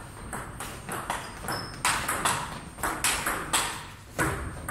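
Table tennis rally: the ball clicking in quick succession as it bounces on the table and is struck by the players' rubber-faced bats, with a short ringing in the hall after each hit.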